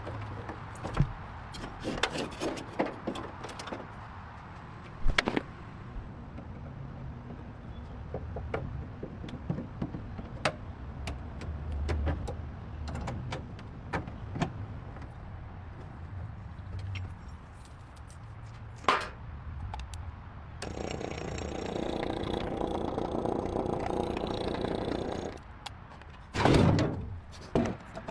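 Hand-tool work on a car: repeated clicks, clinks and knocks, with a steady whirring noise for about four seconds starting two-thirds of the way in, then a few louder knocks near the end.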